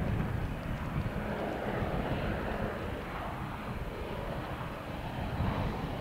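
P-51D Mustang's Packard-built Merlin V12 engine running, a steady rough low rumble.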